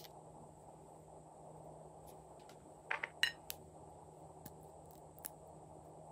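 Nail polish bottles and their caps being handled: a click as a cap goes on at the start, a quick cluster of sharper clicks about three seconds in as the next bottle is picked up and uncapped, then a few light ticks, over a faint steady hiss.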